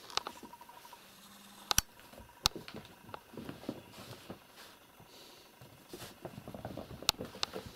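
Kittens scampering and scuffling at play: soft, irregular pattering and scratching, with a few sharp clicks, two close together about two seconds in and another about seven seconds in.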